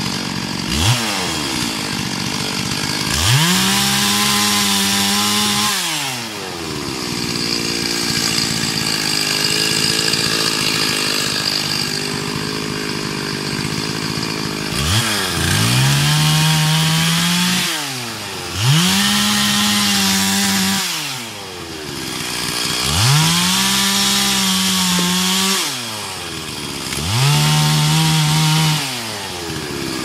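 Two-stroke chainsaw running, revved up to full throttle about five times for two to three seconds each and dropping back to idle between.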